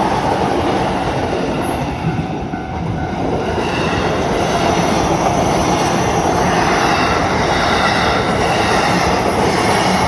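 Two JR Saikyo Line E233-series electric commuter trains passing close by at a level crossing: a continuous loud rumble and clatter of wheels on rail. The noise dips briefly about two seconds in and builds again as the second train runs past.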